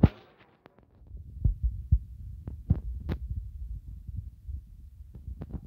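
Phone handling noise: a low rumble with scattered soft knocks and clicks as the phone is moved about.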